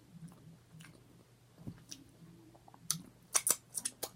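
Mouth sounds of eating: quiet chewing, then from about three seconds in a quick run of sharp, wet smacking clicks, over a low steady hum.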